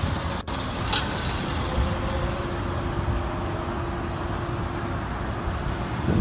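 Outdoor road-traffic noise: an even wash of vehicle sound with a faint steady hum through most of it, and a single sharp click about half a second in.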